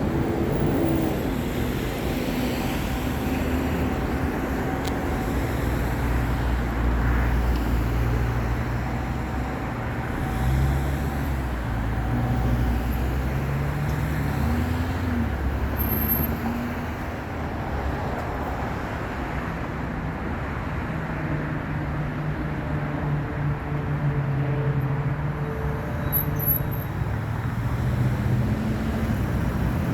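Steady road traffic: vehicles passing one after another, their engine notes rising and falling as they go by.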